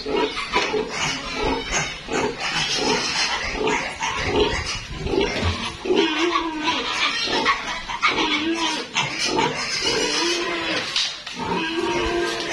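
Pigs calling: a continuous run of short squeals and grunts overlapping one after another.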